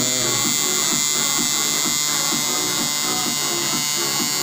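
Electric tattoo machine fitted with a 7-round-liner needle, running with a steady buzz.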